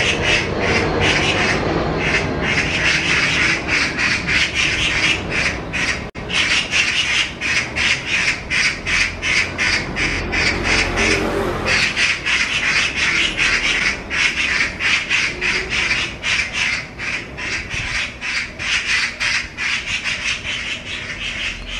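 Oriental magpies chattering harshly, a rapid run of rattling 'kkak-kkak' calls about four a second: two birds mobbing a cat.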